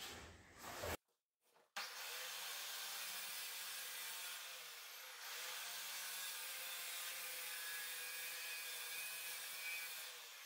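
Electric masonry cutter running steadily, its blade grinding a channel into a plastered wall. It starts about two seconds in, after a short gap.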